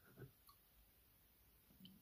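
Near silence, with a few faint clicks and a soft rustle as the opened aluminium drink can is handled.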